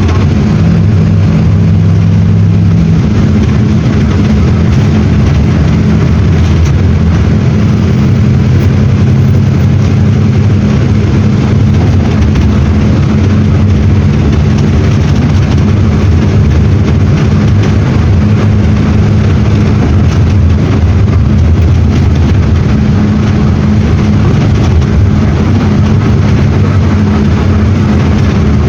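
Mercedes-Benz OF-1721 BlueTec 6 bus's OM-924 LA four-cylinder inline diesel engine running steadily, its pitch shifting slightly a few times as engine speed changes.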